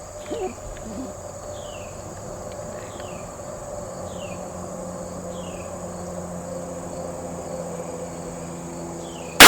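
Insects droning steadily on one high tone, with a short falling chirp repeated about once a second. A single loud gunshot goes off right at the end.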